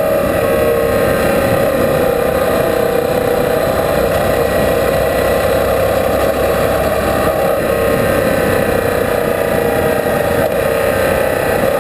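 Motorcycle engine running steadily at cruising speed on a gravel road, its note wavering slightly, under loud wind rush and tyre noise from the gravel.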